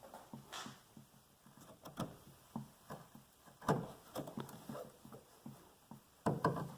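A flathead screwdriver prying at the metal retaining clip on a VW Golf Mk4 hatch strut's end fitting: scattered small clicks and scrapes of metal on metal, with a sharper knock about three and a half seconds in and a few more near the end.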